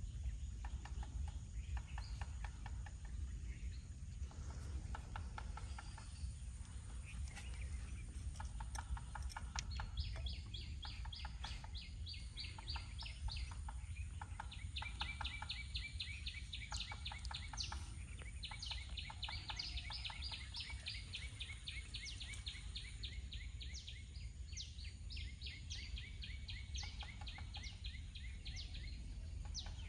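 Outdoor ambience of small wild animals calling in long, rapid, high-pitched ticking trills, many pulses a second and several seconds per run, growing denser after about ten seconds, over a steady low rumble.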